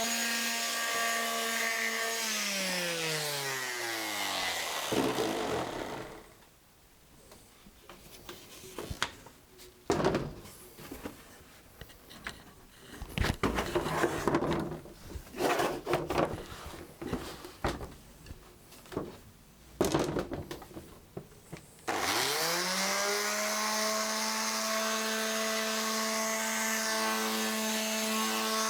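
Electric sheet sander running steadily, then switched off and winding down in pitch. Several seconds of scattered knocks and rubbing follow as the workpiece is handled. It is switched back on near the end, rising quickly to full speed and running steadily again.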